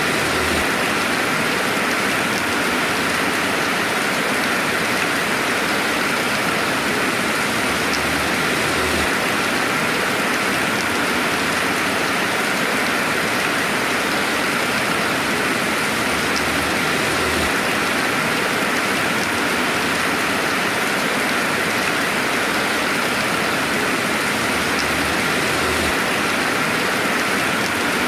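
Steady rainfall, an even hiss of rain with no thunder.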